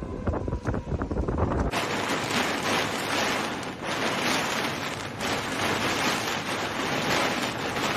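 Severe-storm wind rushing over the microphone as a loud, steady hiss. About two seconds in, a deeper rumble drops away and the hiss becomes brighter and denser.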